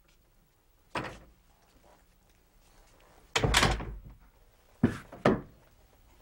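A door being worked: a small click about a second in, a louder bang of the door shutting a little after three seconds, then two short sharp knocks about half a second apart.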